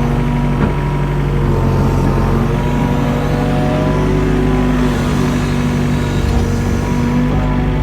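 Mini excavator's diesel engine running steadily under load, with a thin whine over the engine note.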